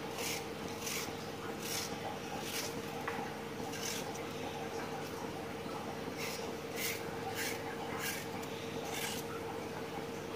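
Kitchen knife cutting raw potato slices into thin fry strips, a short crisp cut every half second to a second, over a steady hum.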